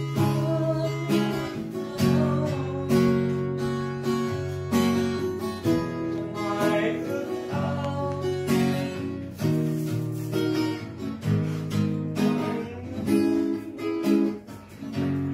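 Background music played on a strummed acoustic guitar, with chord strokes about once a second.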